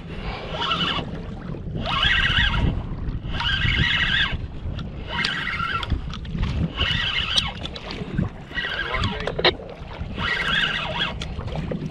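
Fishing reel working against a hooked fish in repeated whirring bursts, each about a second long and about every second and a half, over a steady rumble of wind and water.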